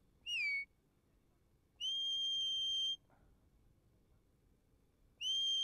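Sheepdog handler's whistle commands to a working dog: a short falling note, then a long steady high note of about a second, then a note that rises and holds near the end.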